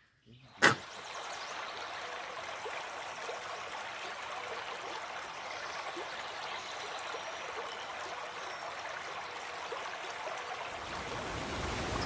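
Steady rush of flowing water, like a stream, with faint scattered ticks over it. A single sharp click sounds just under a second in.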